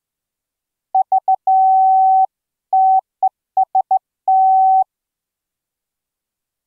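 Morse code sidetone from the ehoCW software CW keyer, keyed by hand with a straight key: a single steady mid-pitched beep switched on and off in dots and dashes. It sends three dots and a long dash, then a pause, a dash, a dot, three dots and another long dash, with uneven hand-sent timing.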